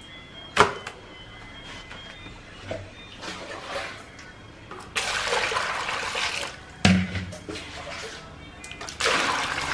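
Water poured into a plastic basin holding a whole gutted fish: two rushing pours, the first a second and a half long, the second starting near the end. Sharp knocks of things set down in the basin come about half a second in and just before the second pour, the later one with a dull thud.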